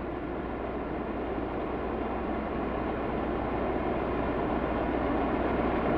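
Ambient electronic background music: a soft, steady wash of noise like distant surf or wind over a low hum, slowly growing louder.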